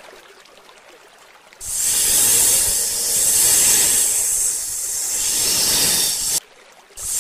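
Loud, long snake hissing that starts about a second and a half in, breaks off for about half a second near the end, then starts again.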